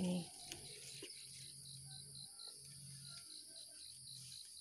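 Insects chirping steadily in the background in a high, rapid, even pulsing trill, with a few faint clicks from leaves being handled.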